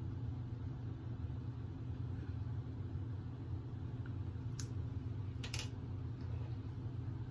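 Steady low background hum, with two faint clicks a little past the middle.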